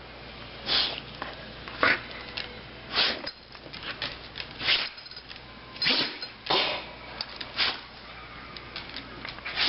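A dog sneezing over and over: about eight short, sharp sneezes, roughly one a second, as if trying to clear something from its nose.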